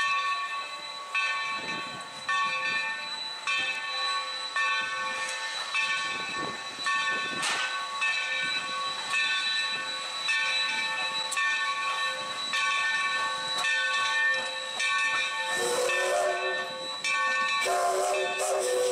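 Steam locomotive No. 3025's bell ringing steadily, about one stroke a second, over a hiss of steam as the engine rolls slowly into the station. A lower tone joins near the end.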